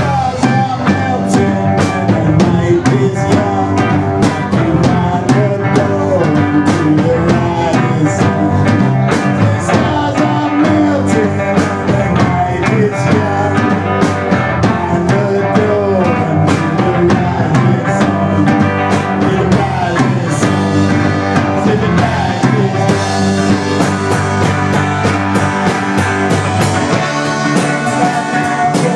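Live band playing rock music: guitars and a drum kit, with steady drum and cymbal hits and a gliding guitar line.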